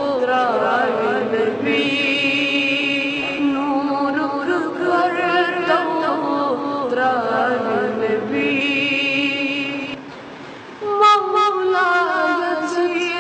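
A boy singing a naat, a devotional poem, in long held phrases with a wavering, ornamented melody. His voice breaks off briefly near the end, then comes back in strongly.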